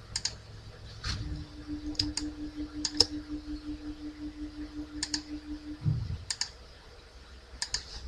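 Computer mouse clicking several times at irregular intervals as anchor points are selected and dragged in Illustrator. From about a second in to about six seconds, a low steady hum that pulses a few times a second runs under the clicks, starting and stopping with a soft low thump.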